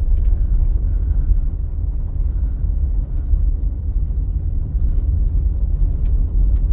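Car driving on a gravel road, heard from inside the cabin: a steady low rumble of tyres and engine, with a few faint ticks.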